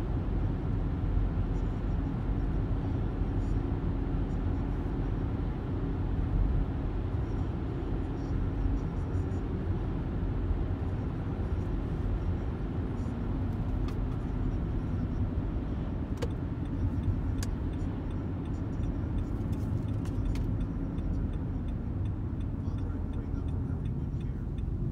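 Car interior noise while driving at steady speed: a low, even rumble of engine and tyres on the road, heard from inside the cabin. A few faint ticks come in the second half.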